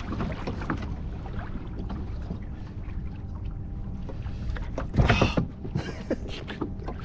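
Steady low rumble of wind and water around a kayak on open water, with a short, loud noisy burst about five seconds in.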